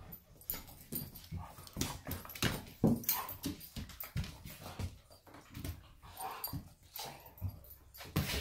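Two dogs wrestling, with short growls and whines over scuffling bodies and paws on a hardwood floor.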